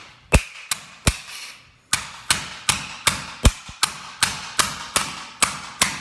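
Rubber mallet repeatedly striking a hairdryer's plastic parts against a concrete floor: three blows, a short pause, then a fast, even run of about a dozen blows, roughly three a second.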